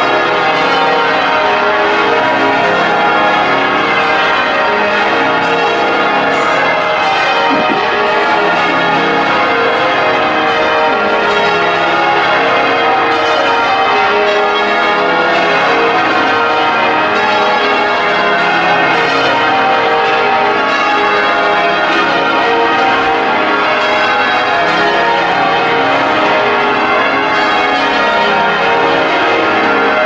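Change ringing on the ring of thirteen bells of Liverpool Anglican Cathedral, the heaviest ring in the world with an 82 cwt tenor in A♭, heard from the ground below the tower. The bells strike in a continuous, evenly paced stream of overlapping rounds.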